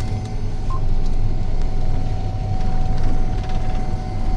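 A tractor engine running steadily, heard from inside the cab as a low rumble with a thin steady whine over it.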